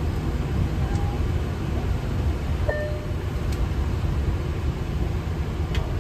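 Steady low rumble and hiss of cabin noise in a Boeing 737-800 cockpit during taxi, with two short faint tones about one and three seconds in.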